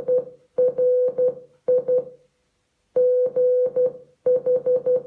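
Morse code beeps from an Amazon Echo speaker: one steady electronic tone keyed on and off in short dots and longer dashes, in letter groups separated by pauses. The groups spell out the word BRIGHT: the end of B, then R, I, G and H.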